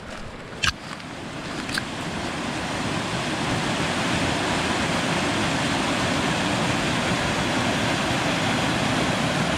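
Rushing whitewater of a small rocky cascade: a steady roar of water over boulders that grows louder over the first few seconds, then holds. Two sharp clicks sound in the first two seconds.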